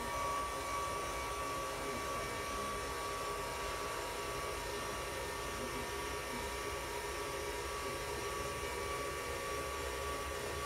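AllCore360 core-training machine's electric drive running, a steady motor hum with a thin high whine, as it slowly tilts the rider backward.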